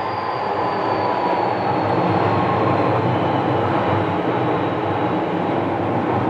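Kobe City Subway 6000-series train heard on board while running: a steady rumble of wheels on track with the Hitachi hybrid-SiC inverter and traction-motor whine, its tones slowly falling in pitch as the train slows.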